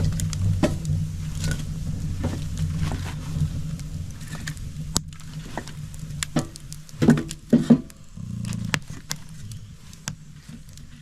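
Wood fire crackling in a stove: scattered sharp crackles over a steady low rumble, with a few louder knocks about seven seconds in. It grows quieter toward the end.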